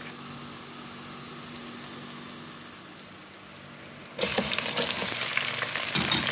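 Sliced onions frying in oil in a pot, a steady quiet sizzle. About four seconds in it jumps to a louder, crackling sizzle as raw chicken pieces go into the hot oil and browned onions, with a few soft thuds as they land.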